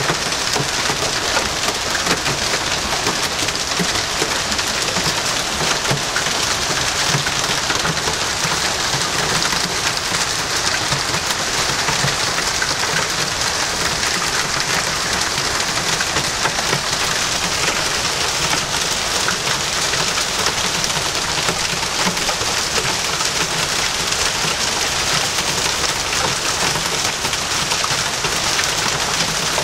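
Heavy downpour mixed with hail, pelting down steadily: a dense, even hiss of drops and hailstones striking paving, pond water and leaves.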